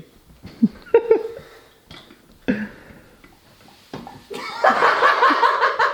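A few short vocal sounds, then from about four seconds in a group of people bursts out laughing and keeps laughing.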